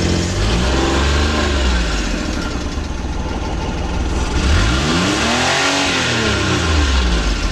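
Multicab's Suzuki F6A three-cylinder engine running just after catching from a hard start, revved up and back down twice, the second rev higher and longer. The mechanic traces the hard starting to a carburetor leaking at its O-rings.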